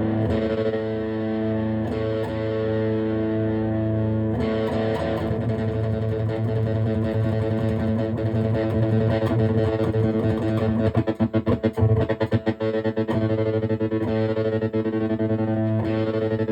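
Electric guitar played through a homemade overdrive pedal built from a broken cassette player, giving a distorted tone. It holds ringing chords, with a burst of fast, choppy picking about eleven seconds in.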